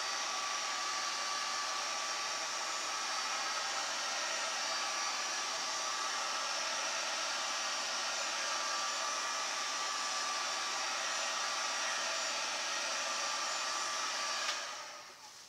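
Handheld heat gun running steadily, a blowing fan with a faint steady whine, played over wet acrylic pour paint to pop air bubbles. It cuts off near the end with a click, the fan winding down.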